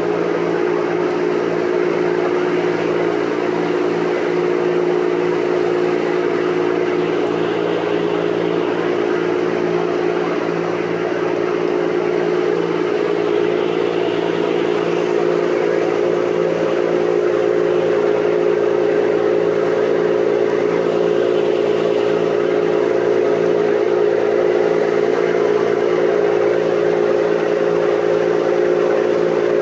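Boat engine running steadily at a constant pitch, a little louder from about halfway through.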